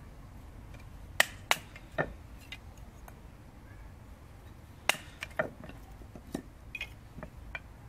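Sharp cracks and knocks as an O1 tool-steel bushcraft knife is driven down through small sticks of wood, splitting them, with pieces knocking on a stone slab. The knocks come at irregular moments, about eight in all, the loudest about a second in and about five seconds in.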